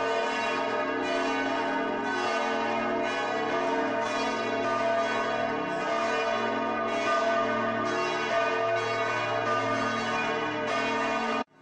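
Church bells pealing from the tower: several bells ringing together, with fresh strikes about once a second, cutting off suddenly near the end.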